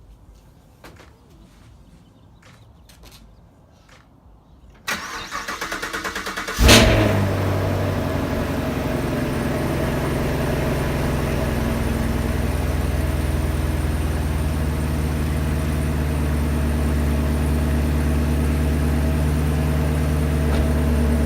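Chevrolet Camaro cold start on its stock exhaust: after a few faint knocks, the starter cranks for under two seconds, the engine catches about seven seconds in with a loud flare, then settles into a steady, loud idle.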